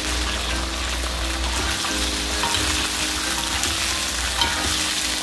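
Peanuts frying in hot oil in a steel wok: a steady sizzle while they are stirred and turned, with light clicks of the nuts and utensil against the wok, one sharper click near the end.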